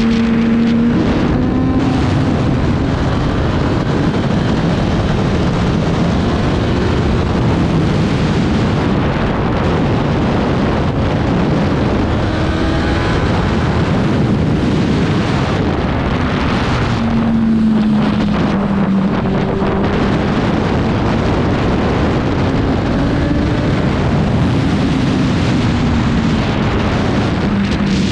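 Racing motorcycle engine heard onboard at speed, its pitch rising and falling with throttle and gear changes, under heavy wind noise on the microphone.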